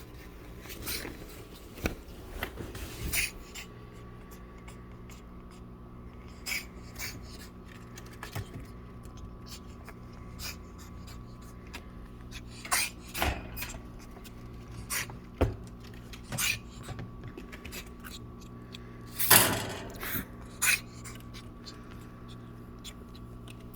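A pet sneezing: a short noisy burst about nineteen seconds in, the loudest sound, with two smaller ones just after it. Scattered light knocks and clicks sound over a steady electrical hum.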